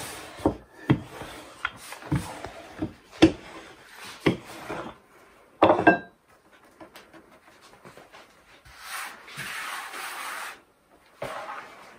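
Wooden rolling pin rolling pie crust dough on a floured wooden board: a run of rubbing strokes, each with a soft knock, over the first five seconds, and a louder knock about six seconds in. Later a hand rubs flour across the board with a scratchy swish.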